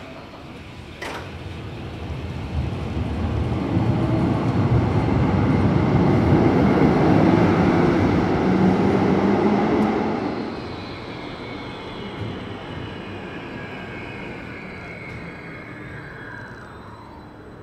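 A tram pulls out of an underground station. The rumble of its motors and wheels on the rails grows to a loud peak and fades after about ten seconds as it leaves. There is a short click about a second in.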